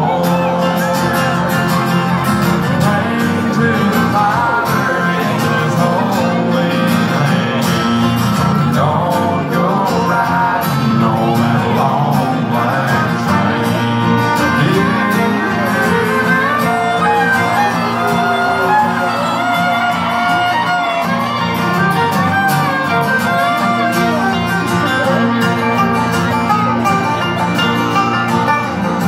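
A live country band playing with acoustic guitar, electric guitar and fiddle, recorded from within the audience.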